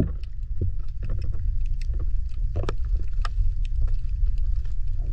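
Underwater sound picked up by a submerged camera: a steady low rumble of water moving around the camera, with scattered sharp clicks and ticks, one stronger than the rest about two and a half seconds in.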